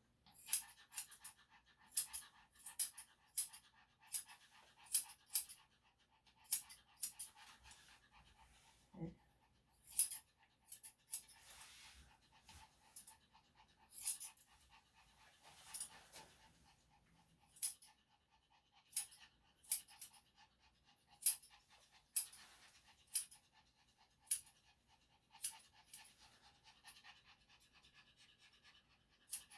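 Yorkshire Terrier panting while being groomed, with sharp snipping clicks about once or twice a second and a faint steady hum underneath.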